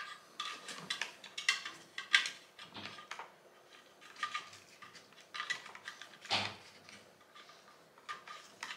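Electrical cable being fed and bent by hand through plastic oval conduit into a metal back box: a run of light clicks, scrapes and rustles, with one louder knock about six seconds in.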